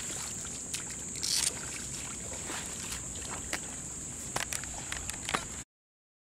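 Wet mud and shallow water sloshing and squelching underfoot, with scattered small clicks and a steady high hiss; the sound cuts off abruptly near the end.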